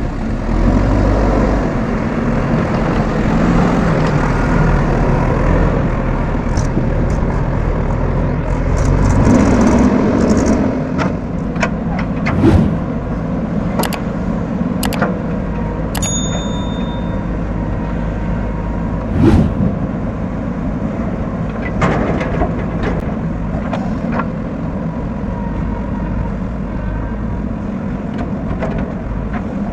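Diesel engine of a JCB backhoe loader running steadily while it works, with a few sharp knocks and clanks about halfway through.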